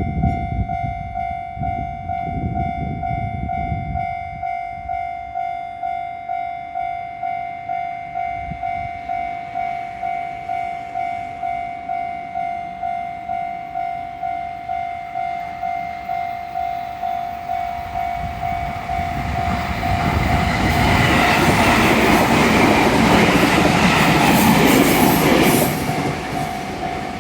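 Japanese level-crossing warning bell ringing steadily, about two strokes a second. From about twenty seconds in, a JR 211-series electric train passes through the crossing with a loud rumble of wheels on rail, which drops away shortly before the end.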